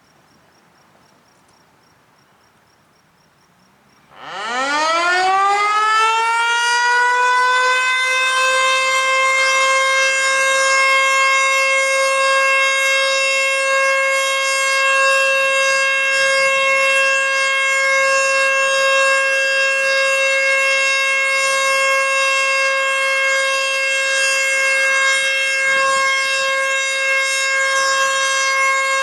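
American Signal T-121 outdoor warning siren sounding its steady Alert test signal. About four seconds in it winds up from quiet, its pitch rising quickly for a few seconds, then it holds one loud, steady high tone.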